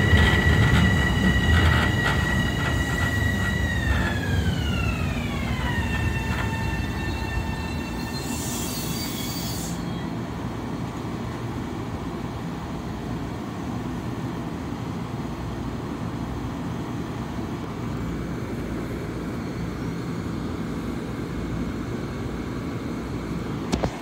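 Long Island Rail Road M7 electric train slowing to a stop: the traction motors' whine, several tones together, holds steady and then slides down in pitch over about two seconds as the train brakes, over a rumble of the cars that fades. About eight seconds in comes a short burst of hiss, then the standing train gives a steady low hum.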